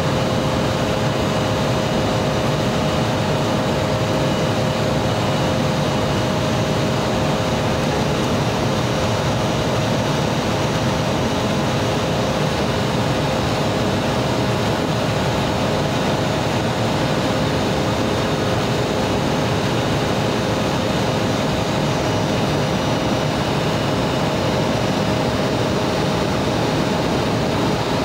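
Steady cabin noise of an Embraer 175 climbing out after takeoff: its wing-mounted GE CF34 turbofans running at climb power with rushing airflow, under a steady two-note hum.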